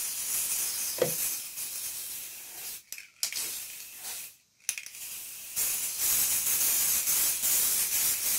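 Aerosol spray-paint can spraying with a high hiss, broken by short pauses about three and four and a half seconds in, then a longer, louder spray through the second half.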